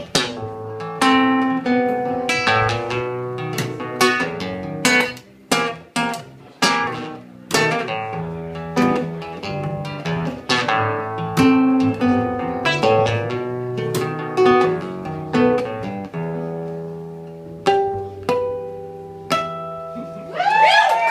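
Nylon-string acoustic guitar and pizzicato upright bass playing an instrumental ending, a steady run of plucked guitar notes over low bass notes that thins to a few last, spaced-out notes. Right at the end, applause and cheering break out.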